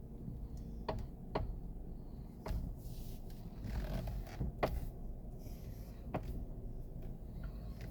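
Knocking from a 2016 Toyota RAV4's steering column as the wheel is worked: five sharp knocks, irregularly spaced one to two seconds apart, over a low steady rumble. The owner traced the knock to a dry spiral gear inside the column.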